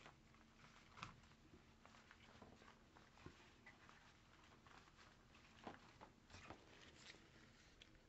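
Near silence: quiet room tone with faint, scattered light clicks and rustles.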